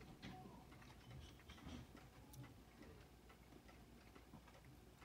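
Near silence with faint, irregular small clicks and ticks.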